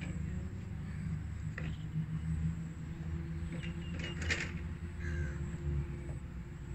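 Open-air ambience: a steady low rumble with a few short bird calls, the clearest cluster about four seconds in.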